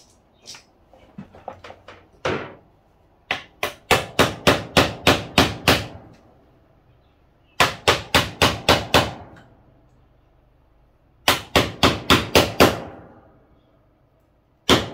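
Hammer striking a chisel driven into the laminated core of a washing machine pump motor to split it open: a few light taps, then three quick runs of sharp metallic strikes, about four or five a second, each run ringing briefly after the last blow.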